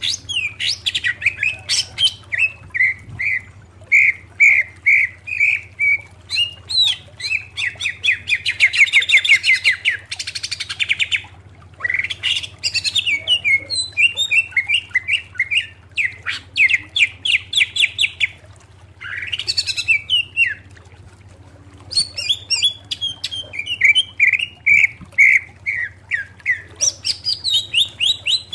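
Male greater green leafbird (cucak ijo) singing loudly in phrases of rapid repeated notes, fast trills and falling notes, with short pauses between phrases.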